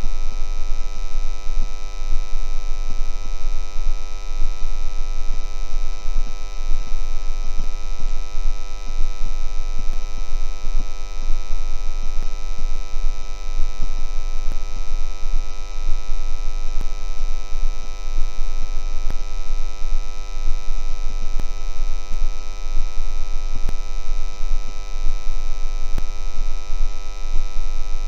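Electric transformer buzzing: a steady, deep mains hum with many higher overtones that give it a buzzing edge. Faint crackles are scattered through it.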